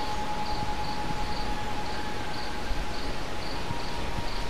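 Insects chirping: short, high chirps repeating about two to three times a second over a steady hum and hiss.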